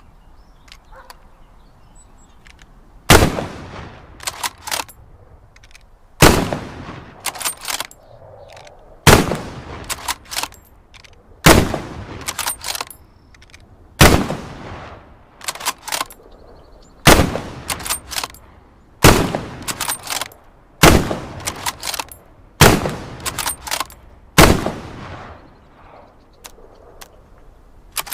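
Lee-Enfield bolt-action rifle firing about ten shots, two to three seconds apart, each report trailing off. Between the shots come a few sharp clicks of the bolt being worked.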